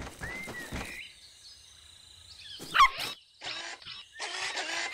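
Cartoon sound effects for an animated dog: quick pattering steps in the first second, then one short, loud bark-like yelp that falls in pitch about three seconds in, followed by bursts of busy chirping.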